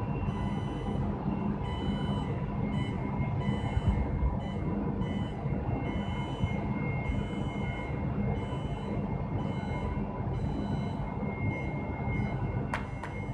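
Fiber laser cutting machine working on stainless steel: a steady low hum overlaid with high whines that start and stop every second or so, and a few sharp clicks near the end.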